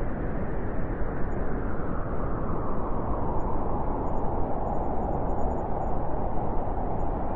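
Blizzard wind blowing hard and steady, a dense low rush, with a hollow howling tone growing stronger over the second half.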